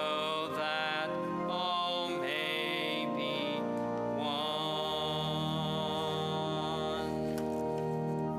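Church organ playing the final bars of a hymn, moving through sustained chords and ending on a long held chord that is released right at the end.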